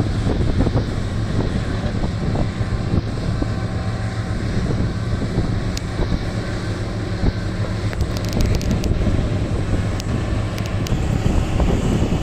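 Large diesel engines of a Komatsu PC1250 excavator and HD785 dump truck running steadily with a deep hum, wind buffeting the microphone. A few sharp clicks come about six and eight seconds in.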